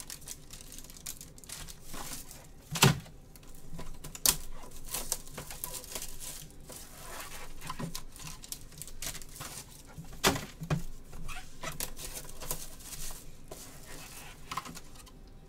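Cardboard box of 2017 Topps Tier One baseball cards being opened and handled with gloved hands: rustling, scraping and crinkling, with small clicks and a few sharp knocks, about 3, 4 and 10 seconds in.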